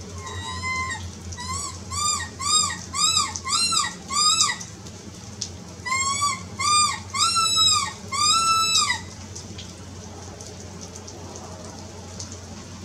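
Predator caller sounding a string of high, rising-and-falling yelping calls in three runs with short pauses, the middle runs fast at about two to three calls a second. The calls stop about nine seconds in, leaving rain falling.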